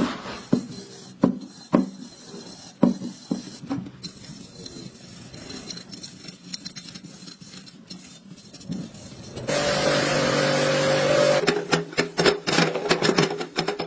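Several sharp knocks and clatter, then a machine's electric motor starts about nine and a half seconds in and runs steadily with a hiss.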